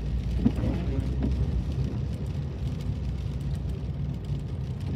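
Steady low rumble of a car's engine and tyres on a wet road, heard from inside the cabin while driving, with faint scattered ticks over it.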